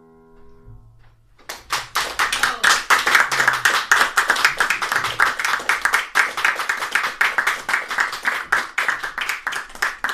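The last chord on a grand piano dies away. About a second and a half in, a small audience breaks into applause that keeps going.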